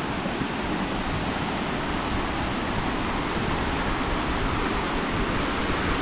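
Waterfall's water rushing steadily.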